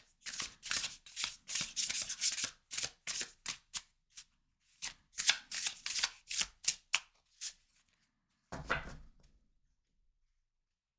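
A deck of tarot cards being shuffled by hand: a run of quick, crisp card strokes, a short pause, a second run, then one louder rustle of the cards about a second later.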